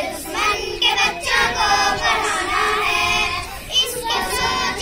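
A group of young girls singing a Hindi patriotic song together, one of them into a handheld microphone.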